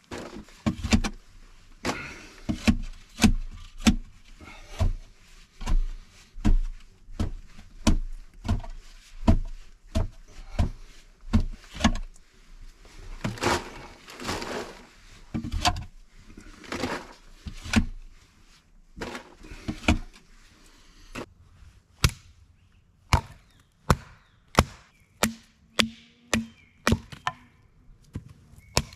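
Repeated chopping blows of an axe into wood, about one to two strikes a second, with some scraping between blows.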